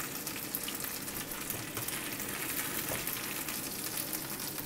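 Oil and masala sizzling steadily in a non-stick griddle pan around pan-fried chicken pieces that are done cooking, with a fine crackle.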